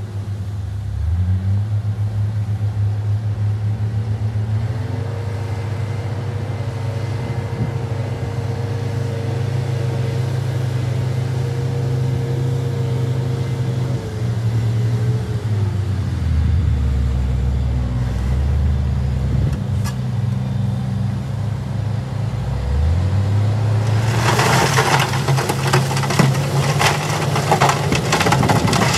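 Heavy diesel dump truck engine running with changing revs as it manoeuvres, rising in pitch a few seconds before the end as the bed is raised. Near the end, loose crushed rock pours and clatters out of the tipping bed.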